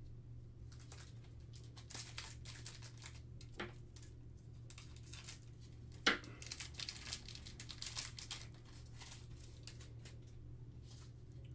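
Plastic crinkling and rustling as trading cards in plastic sleeves and foil card packs are handled and sorted, with scattered short clicks, the sharpest about six seconds in.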